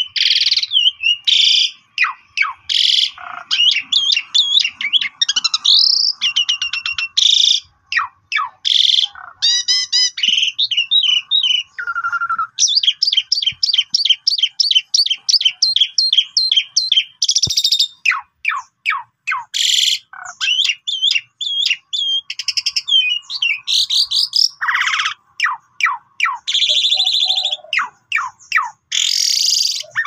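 Javan pied starling (jalak suren) singing a long, varied song without pause: whistles, fast trills, harsh chattering bursts, and a long run of quick repeated notes in the middle.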